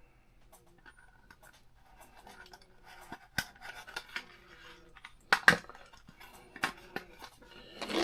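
Small plastic parts clicking and scraping as a 3.7-volt Li-ion battery is fitted into a cheap 1/24 scale RC car. There are several sharp clicks, the loudest a pair about halfway through.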